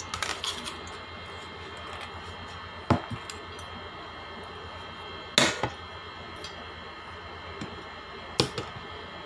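A few sharp clinks of a metal utensil against dishware, about every two and a half to three seconds, over a steady room hum.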